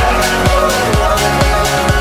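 Background music: an electronic dance track with a steady kick drum, about two beats a second.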